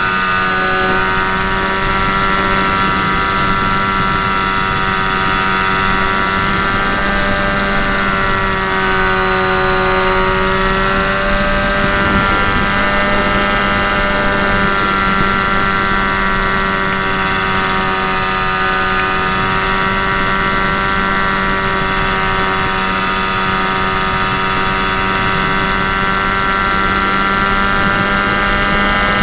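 A model aircraft's motor and propeller, heard through its onboard camera: a steady, many-toned whine over a rush of wind, its pitch wavering a little as it flies.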